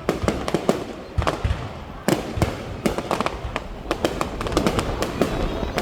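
Fireworks exploding in quick, irregular succession: many sharp bangs and pops, several a second, over a continuous rumble.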